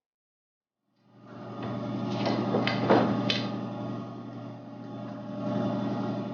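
An electric power tool's motor starting up about a second in and running steadily, with a few sharp knocks around two to three seconds in.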